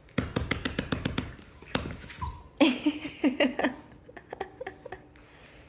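Dachshund's excited greeting: a fast run of clicks and taps, then a short series of pitched vocal sounds about two and a half seconds in, then scattered taps.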